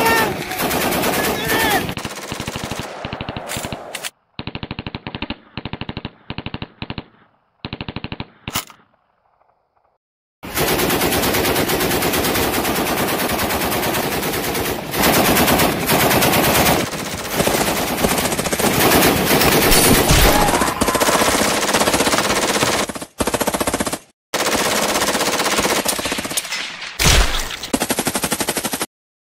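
Automatic rifle fire in long rapid bursts. About four seconds in, the bursts turn duller and more muffled and come in short strings. After a short pause near nine seconds, near-continuous heavy fire runs almost to the end.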